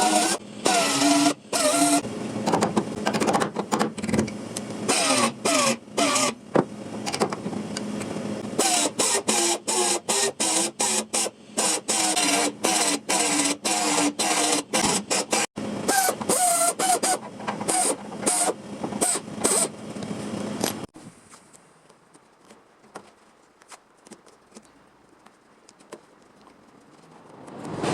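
Small electric power tool running under changing load during rust removal, its motor pitch wandering up and down in choppy stop-start bursts. After about 21 seconds it stops, leaving only faint light ticks.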